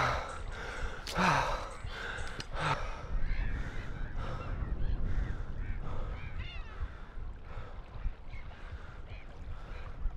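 A person breathing hard after long-distance skateboard pushing, three heavy breaths in the first few seconds. Then birds call in short repeated chirps, over a low wind rumble on the microphone.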